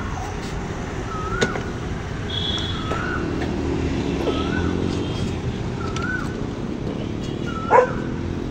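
Steady rumble of road traffic, with a short up-and-down chirp repeating about every one and a half seconds. A sharp click comes about a second and a half in, and a louder one near the end.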